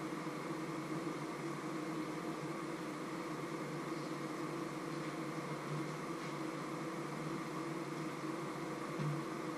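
A steady machine hum with an even hiss over it, like a small fan or appliance running. There is a soft low knock about nine seconds in.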